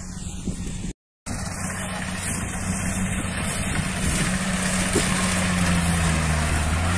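Rice combine harvester's engine running steadily in the paddy, a low even hum that grows gradually louder as the harvester draws closer, with a brief dropout about a second in.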